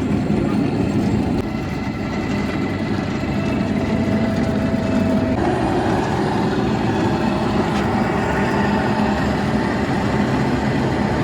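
Steady mechanical drone of a cable car running along its cable, with a low hum and a faint thin whine that stops about five seconds in.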